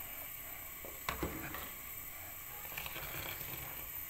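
Hot milky chai poured in a thin stream from a metal pan onto frothy tea: a soft, steady trickle, with a single light knock about a second in.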